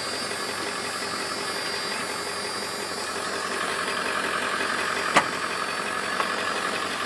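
Ford 7.3 Power Stroke turbo-diesel V8 idling steadily, with a single sharp click about five seconds in.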